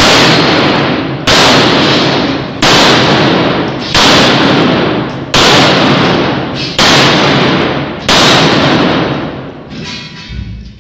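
Seven handgun shots fired at a steady pace, about one every 1.3 seconds, each followed by a long echo off the concrete walls of an indoor range.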